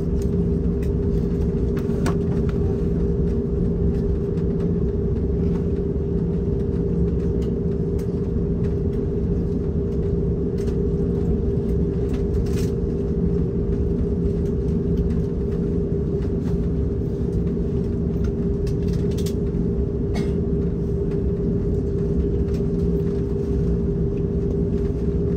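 Steady low rumble inside the cabin of an Airbus A330-900neo taxiing after landing, with a steady hum over it.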